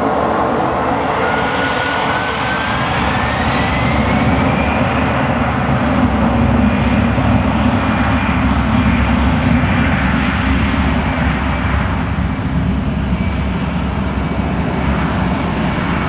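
Airbus A320-200 jet engines at takeoff power as the airliner accelerates down the runway: a loud steady jet noise, with a whine rising in pitch over the first few seconds as the engines spool up.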